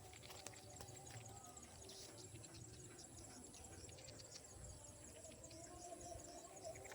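Near silence: faint outdoor background with scattered small clicks.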